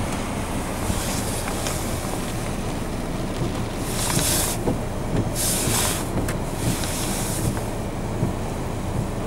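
Gale-force wind buffeting the microphone over the constant rumble of heavy surf breaking on a rocky shore. A few sharp hissing gusts come in the middle.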